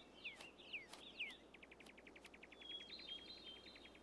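Faint small-bird calls: a few short downward-sliding chirps, then about a second and a half in a fast, even trill, followed by higher warbling notes.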